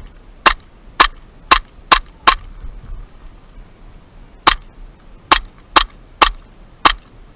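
Airsoft gun firing single shots: six sharp cracks about half a second apart, a pause of about two seconds, then five more at uneven spacing.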